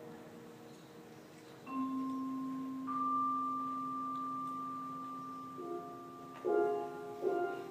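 Percussion ensemble in a quiet passage of sparse mallet-percussion notes that ring on for several seconds. A low and a high note enter together, another high note follows about a second later, and two sharper struck chords come near the end.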